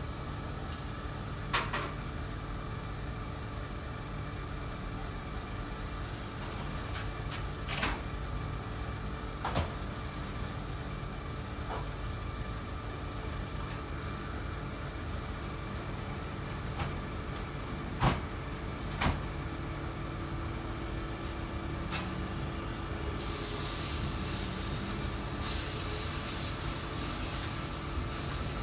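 Steady kitchen hum with scattered clicks and knocks of utensils, then, about five seconds before the end, a high hissing sizzle as chicken pieces fry on a flat-top griddle.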